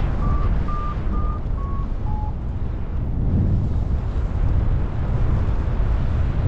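Wind rumbling steadily over the microphone of a paraglider in flight, with a variometer beeping: five short beeps over the first two seconds or so, the last two lower in pitch, then they stop. A vario beeps while it senses climbing, so this means the climb is fading.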